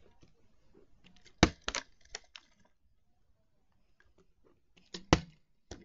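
Sharp clicks and knocks from a plastic water bottle as it is handled and tossed in a bottle flip. The loudest knock comes about a second and a half in, with a few smaller clicks after it, and another sharp knock comes about five seconds in.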